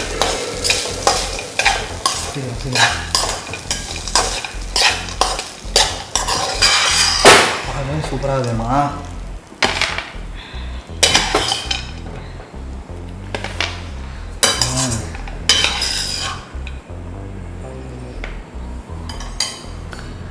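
A spatula scraping and tapping quickly against a non-stick wok as tamarind rice with peanuts is stirred over the flame, with light sizzling. About seven seconds in the strokes thin out to occasional scrapes as the food is spooned onto a plate.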